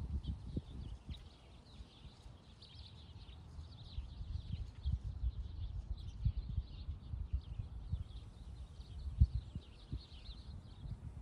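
Wind gusting against the microphone in low, uneven rumbles and thumps, the strongest about nine seconds in, with small birds chirping steadily in the background.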